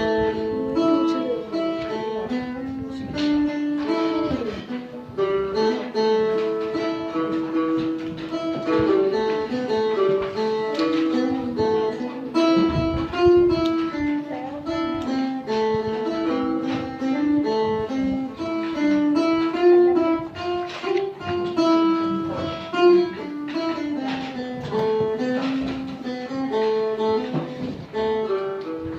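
Phin, the Thai Isan plucked lute, playing a quick, rhythmic melody of plucked notes over a steady drone.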